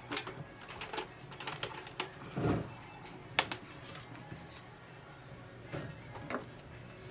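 Scattered clicks and knocks from handling a cat and treatment items on a stainless steel exam table, with a dull thud about two and a half seconds in and a sharp click a second later, over a steady low hum of clinic equipment.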